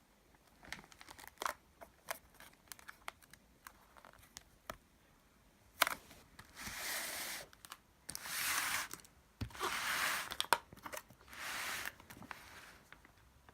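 Packaging being handled and torn open: scattered clicks and rustles, then four ripping sounds of about a second each.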